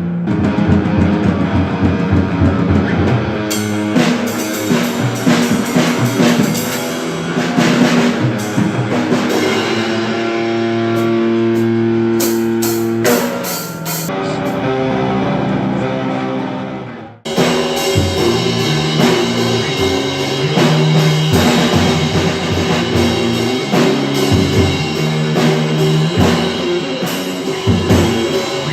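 Amateur rock band playing electric guitar, bass and drum kit, rough-edged playing by members about a month into learning their instruments. Midway, the band holds long chords that fade, the sound cuts out for a split second, and the full band comes back in with the drums.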